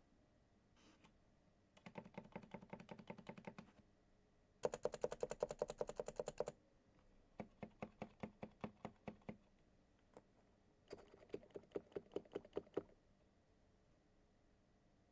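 Typing on a silenced Topre electrostatic-capacitive keyboard, in four runs of quick keystrokes with short pauses between them. The second run is the loudest and fastest, and the third is an even tapping of about five keys a second.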